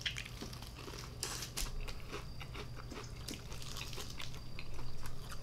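Crispy fried chicken being bitten into and chewed close to the microphone: a run of many short, sharp crunches.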